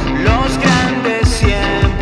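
Rock band music with a steady drum beat.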